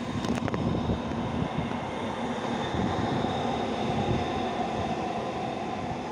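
Steady low rumble of city traffic and ambient noise, with a few faint steady hums in it; two or three sharp clicks just after the start.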